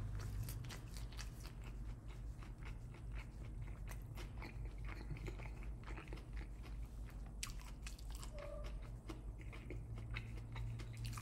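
Close-up chewing of a mouthful of steak bowl with the mouth closed: a steady run of irregular small wet clicks and crunches, over a steady low hum.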